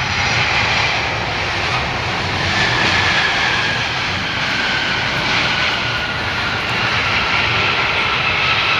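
Turbofan engines of a Japan Airlines Boeing 767 running as the airliner rolls past on the runway: a loud, steady jet roar with a faint whine that slowly falls in pitch.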